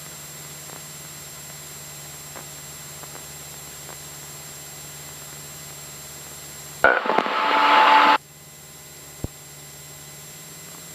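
Steady hiss and low hum of a light aircraft's cockpit radio and intercom audio. About seven seconds in, a loud burst of radio noise lasts just over a second and cuts off sharply, followed by a single click.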